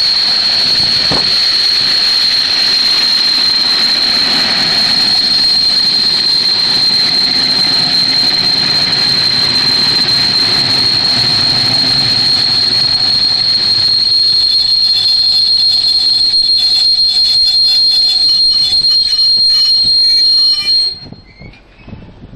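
Regional train of n-Wagen (Silberling) coaches passing close by, with loud running noise and a steady high-pitched squeal held throughout. From about two-thirds of the way in, the wheels clatter rapidly over the rail joints. Near the end the noise drops away abruptly.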